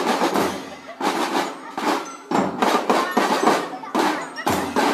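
Marching drum band percussion playing in short phrases: snare and other drums beating, with brief breaks between the phrases.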